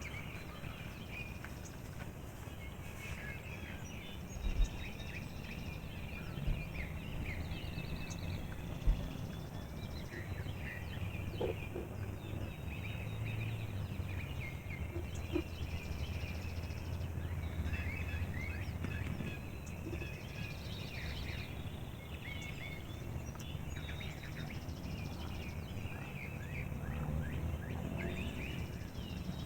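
Wild turkey gobbling among chirping songbirds, over a steady low rumble. Three short low thumps come in the first nine seconds.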